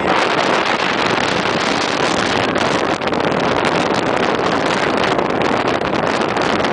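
Gale-force wind buffeting the microphone: a loud, continuous roar with rapid small surges.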